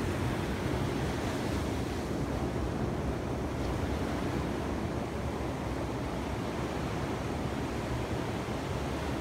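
Ocean surf washing steadily on the beach, with a low wind rumble on the microphone.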